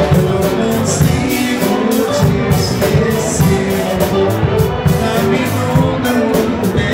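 Live band music: a man singing into a handheld microphone over keyboard, electric guitar and drums, with a steady beat.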